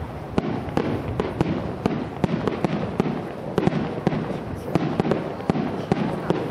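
Fireworks exploding in a rapid, irregular string of sharp bangs, several a second, over a continuous low rumble.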